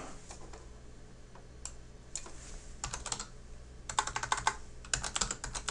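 Typing on a computer keyboard: a few single keystrokes, then quick runs of several keys about three, four and five seconds in, as a short password is typed.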